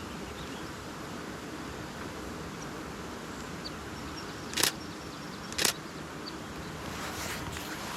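Two sharp clicks of a DSLR camera shutter firing about a second apart, over a steady outdoor background with a few faint, short high bird chirps.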